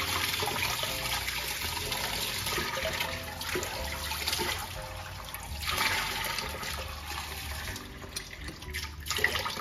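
Kitchen tap running steadily, the stream splashing over hands and mushrooms being rinsed under it.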